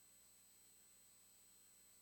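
Near silence: faint steady hiss with a thin high electronic whine, no events.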